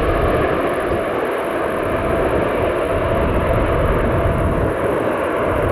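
Twin-engine widebody jet airliner climbing out just after takeoff, its turbofan engines at takeoff power: a steady, loud jet roar with a faint high whine over it.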